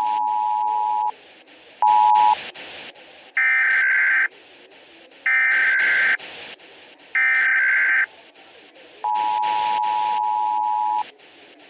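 Emergency Alert System broadcast tones. The two-tone attention signal sounds for about two seconds, then briefly again. Three one-second bursts of the higher, buzzing digital header tone follow, and a final two-second stretch of the attention signal closes the sequence, all over faint regular clicking static.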